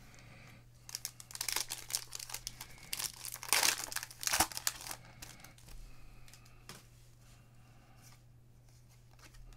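Trading-card pack wrappers being torn open and crinkled by hand, a dense crackle loudest about halfway through, then fading to light rustling. A steady low hum runs underneath.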